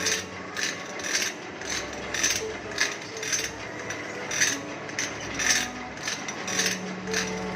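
A metal file rasping across the teeth of a wood saw as it is sharpened, in short even strokes about twice a second.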